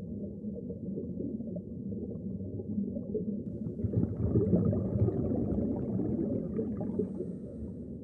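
Muffled, low underwater ambience: a deep rumble that swells and fills out about four seconds in, then eases off near the end.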